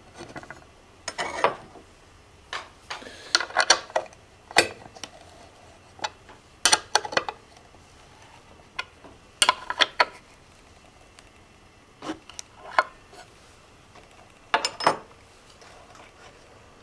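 Scattered sharp metallic clinks and knocks, some in quick clusters, as the steel tool rest of a makeshift lathe is shifted and its clamp adjusted by hand.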